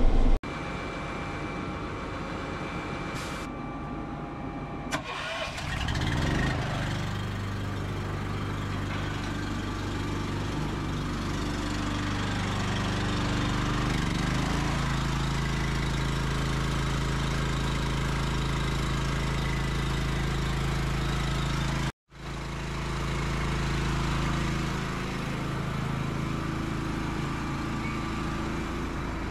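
Honda GX small gasoline engine started about five seconds in, catching and settling into a steady run.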